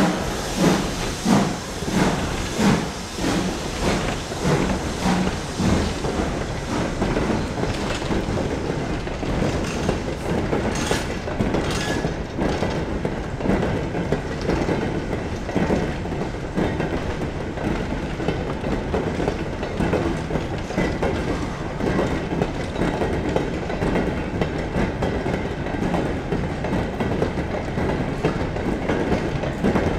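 A steam-hauled goods train of four-wheel box vans passing close by. The locomotive's exhaust beats, about one and a half a second, fade over the first few seconds, leaving the wagons' steady rumble and clickety-clack over the rail joints.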